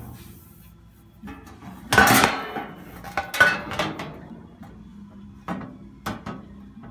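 Metal clanking and rattling as grill parts are handled, a string of sharp knocks with the loudest cluster about two seconds in and single knocks near the end.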